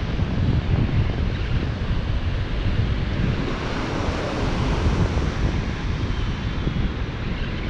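Strong wind buffeting the microphone in a steady low rumble, over ocean surf washing on the shore, with a louder wash about halfway through.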